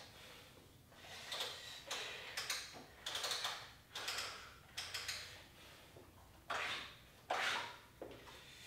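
Light dumbbells being picked up and handled, making a series of short scraping, rustling sounds, roughly one a second.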